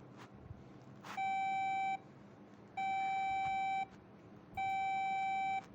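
Emergency alert system alarm: three long electronic beeps at one steady, buzzy pitch, each lasting under a second, with short gaps between them.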